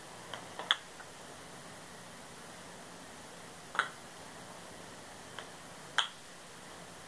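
Sharp wooden clacks of a kendama, the ball knocking against the cup and handle: a quick cluster of three or four clacks about a second in, then single knocks a few seconds apart.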